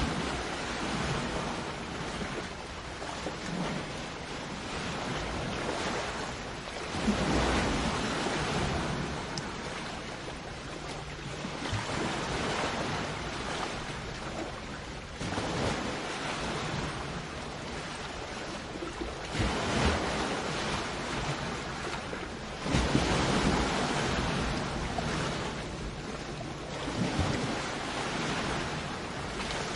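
Sea waves breaking and washing up a shore, a steady rush that swells with each new wave every few seconds.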